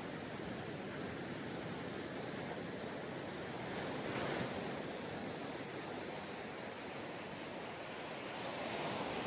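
Sea waves washing onto a sandy beach: a steady wash of surf that swells gently about four seconds in and again near the end.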